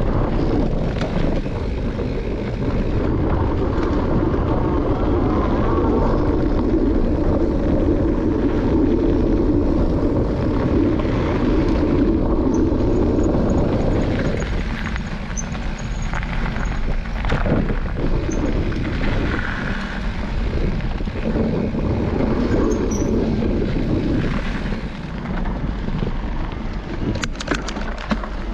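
Wind rushing over the microphone of a camera on a mountain bike riding a gravel trail, mixed with the knobbly tyres rolling on the gravel. It eases off about halfway through, and there are a few sharp knocks and rattles about two-thirds of the way in and near the end.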